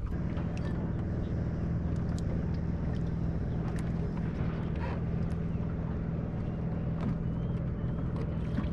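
Steady low hum of a bass boat's bow-mounted electric trolling motor running, with light water noise and a few faint clicks.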